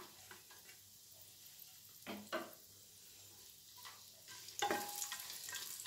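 Wooden spatula stirring dry fruits in hot ghee in an aluminium pressure cooker, with a faint sizzle and light scraping. There are two sharp knocks about two seconds in, and the stirring and sizzling grow louder from about four and a half seconds.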